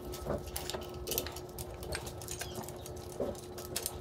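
Light metallic clicks and taps of bolts, spacers and a metal accessory bracket being handled and fitted by hand against an engine, scattered through, over a faint steady hum.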